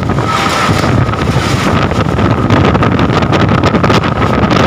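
Storm-force wind gusting hard over a phone microphone: a loud, constant rumble with repeated sharp buffeting bursts and a steady high whistle.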